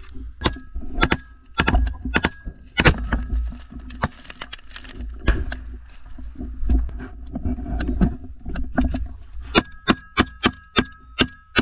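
Gunfire in a firefight: irregular close rifle shots, turning into a quicker run of about three shots a second near the end. A steady high tone sounds alongside some of the shots.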